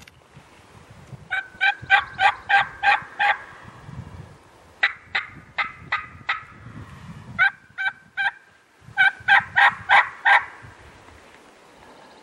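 Loud turkey yelping: four runs of sharp, evenly spaced notes, about four a second, each run lasting one to two seconds.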